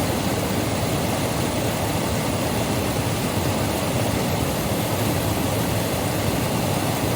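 Waterfall on a mountain stream: a steady, even rush of falling water, heaviest in its low rumble.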